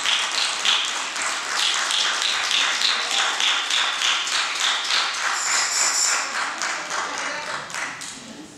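Steady rhythmic hand clapping, about three claps a second, fading out near the end.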